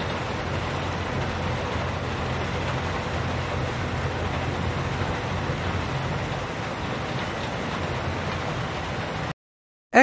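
Heavy construction machinery engine running steadily under a broad hiss, cutting off suddenly near the end.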